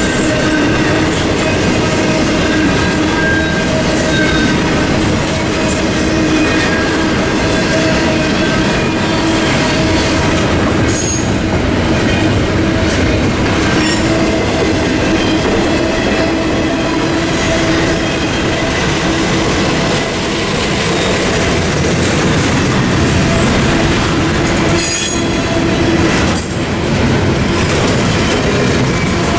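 Double-stack intermodal freight cars rolling past at speed: a steady rumble and clatter of steel wheels on rail with a constant whining tone. Brief high squeals come about 11 and 25 seconds in.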